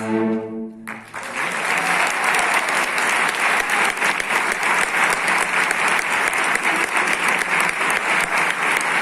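A string orchestra holds its final chord and cuts it off about a second in, and the audience bursts into sustained applause, dense hand-clapping that fills the rest of the time.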